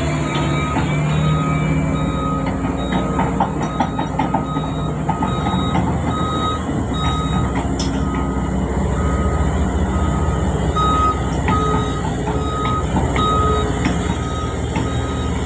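Backhoe's diesel engine running steadily while its backup alarm beeps over and over, a little more than once a second, with scattered metallic clanks from the machine at work.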